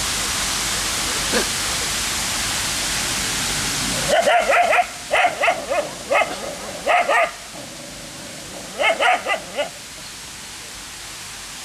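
A dog barking: several runs of quick, high-pitched barks starting about four seconds in and stopping near the tenth second, over a steady background hiss.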